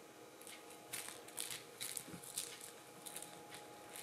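Soft rustling and scratching as a kitten plays with a fuzzy cat-teaser toy on a cloth sheet, about half a dozen brief scuffs over a faint steady hum.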